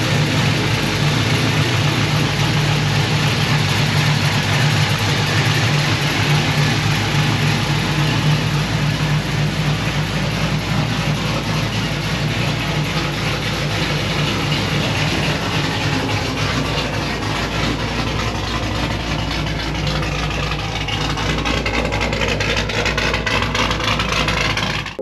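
LS-swapped 4.8-litre V8 in a Mustang GT idling steadily through its aftermarket exhaust, running loud, with no clear revs.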